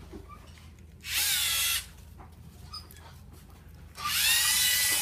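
LEGO Mindstorms EV3 robot's electric motors whining as it drives: a short run of under a second about a second in, then a longer run starting near the end. Each time the pitch rises as the motors spin up, then holds steady.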